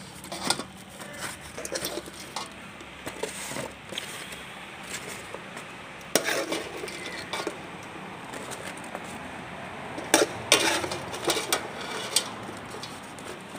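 Metal slotted skimmer clinking and scraping against a large aluminium cooking pot as cooked prawns are scooped out, in irregular knocks with a louder cluster of clatter about ten seconds in.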